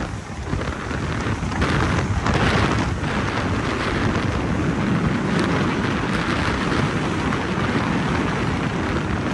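Loud, steady wind buffeting the microphone: a dense rushing roar with no break.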